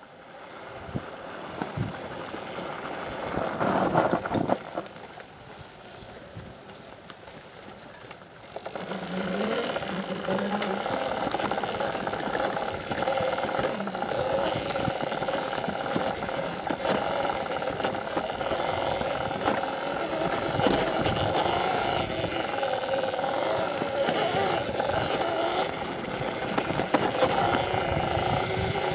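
CZEM Drill One electric dirt bike being ridden: its electric motor whining, the pitch wavering up and down with speed, over wind and tyre noise, getting louder about nine seconds in.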